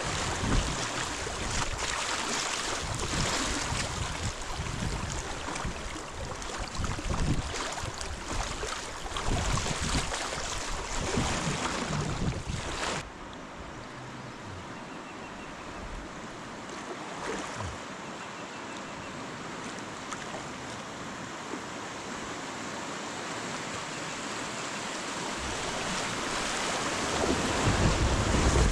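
River water rushing steadily, with gusts of wind buffeting the microphone through the first half. About halfway through the sound drops suddenly to a quieter, even rush of water, which grows louder toward the end.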